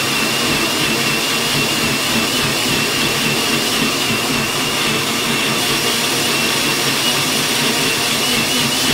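Countertop jug blender running at full speed, blending bananas and milk into a drink: a loud, steady motor noise with a high tone that wavers slightly.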